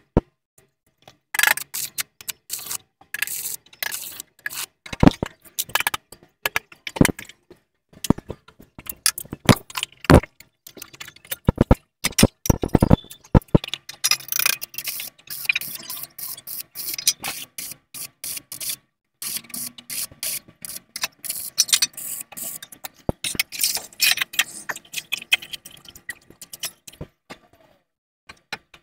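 Stick (arc) welding on thin sheet steel: the arc crackles in runs of a few seconds with brief breaks between beads, stopping shortly before the end.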